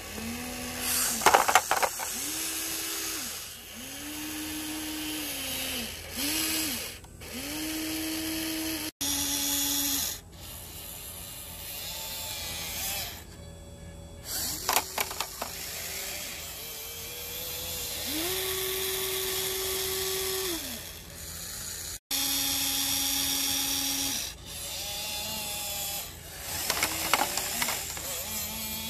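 Small electric motors of a radio-controlled excavator whining in short bursts of a second or two as the boom and grapple move, each burst gliding up in pitch as it starts and down as it stops. Three times a quick rattle of rocks being dropped, the loudest sounds here.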